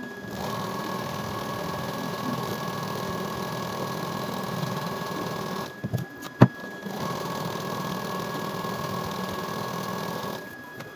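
Domestic electric sewing machine running steadily as it stitches a seam in two runs, about five seconds and then about three and a half seconds, with a short stop between them marked by a single sharp click.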